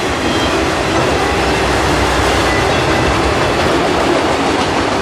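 Freight train of autorack cars rolling past, making a steady, loud rolling noise of steel wheels on the rails.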